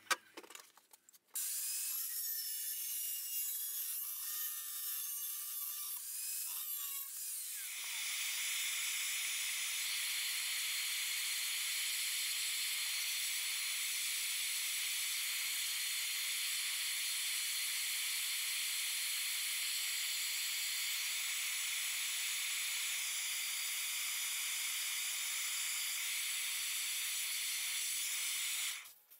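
Handheld gas blowtorch flame hissing as it heats a small piece of lawn mower blade steel held in a vise. The hiss starts suddenly about a second in and is uneven at first. About eight seconds in it turns louder and steady, then cuts off just before the end.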